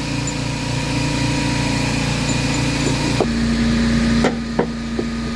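A steady low mechanical hum from a running motor, which shifts in pitch about three seconds in, with a few sharp clicks near the end.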